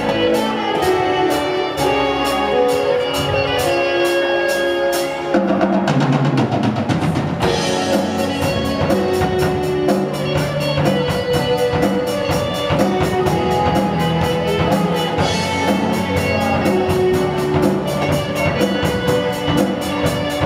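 Live amplified rock band playing: drum kit keeping a steady beat under electric guitar, bass guitar and keyboard, with a quick drum fill about six seconds in.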